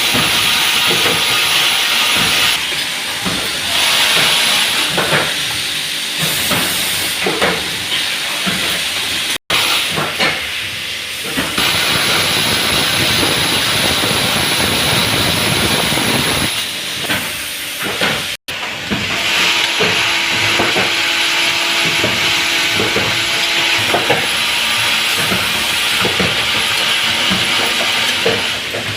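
Steady machine hiss with a faint hum and scattered clicks and knocks. It drops out sharply twice, about a third and two thirds of the way through.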